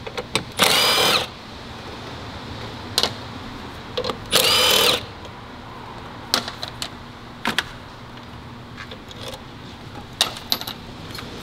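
Cordless power tool spinning off the 10 mm nuts that hold a power steering reservoir: two short motor runs of about half a second each, one just under a second in and one about four and a half seconds in. Sharp clicks and clatter of handling fall between and after them.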